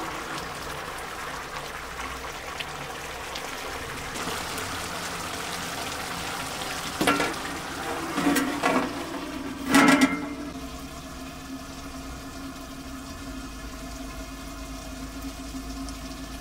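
A large pot of food boiling hard and steaming. Between about seven and ten seconds in come a few metal clanks as an aluminium lid is handled and set on the pot. After that the boiling is quieter and muffled.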